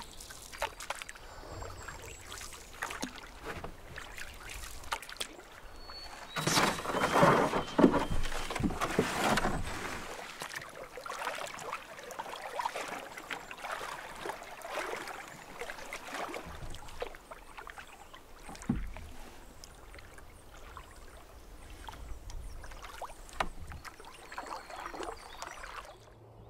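Canoe paddling: paddle strokes pulling through water with splashes and drips off the blade, louder for a few seconds near the middle.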